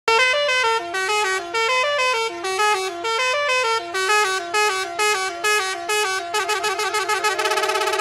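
Basuri-style 'telolet' bus horn playing a melody from the miniature bus's sound module: a run of quick stepped horn notes. Near the end it breaks into a fast warbling trill.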